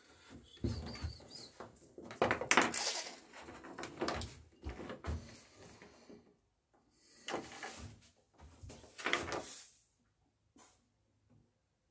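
Handling noises from someone working at a boat hull: irregular knocks, scrapes and rustles as tools are handled and a corded drill is picked up. It falls quiet for about the last two seconds.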